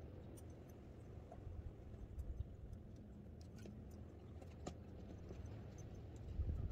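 Quiet outdoor ambience: a low, steady rumble with a few faint, scattered clicks.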